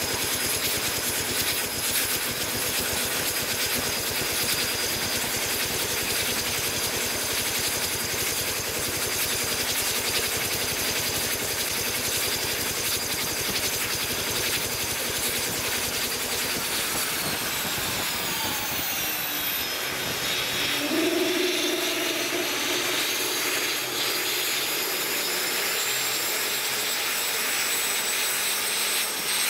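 GTD-350 turboshaft engine from a Mi-2 helicopter running on a test stand: a steady jet roar with a high turbine whine. About 17 seconds in, the whine falls in pitch over a couple of seconds and then holds steady lower, and a lower tone sounds for a few seconds soon after.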